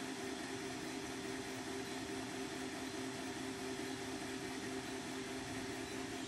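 Creality Ender 3 V3 KE 3D printer running: a steady whir of its fans with two low hum tones held throughout.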